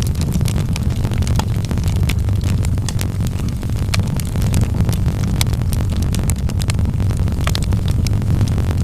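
Fire crackling in a fireplace: frequent, irregular sharp pops and snaps over a steady low rumble of the flames.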